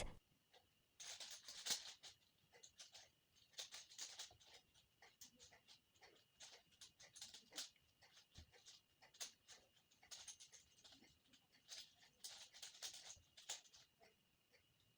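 Faint, irregular clicking and clacking of a 5x5 Rubik's cube's plastic layers being turned, in short clusters of turns.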